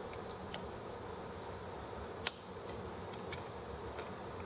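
Small metal clicks of a hex key working the head bolts of an ET8 model engine, with one sharp click about two seconds in, over a steady background hum.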